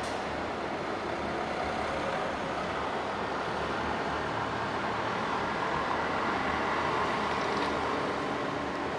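Airliner on landing, its engines making a steady rushing noise that swells about six seconds in and eases near the end, in strong gusty wind.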